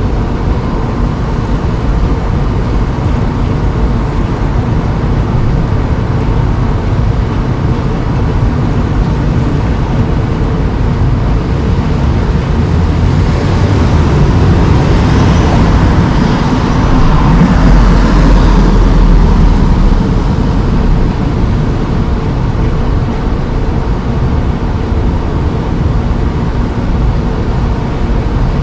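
A vehicle drives past. Its engine and tyre noise swells over several seconds about halfway through, then fades, over a steady low rumble.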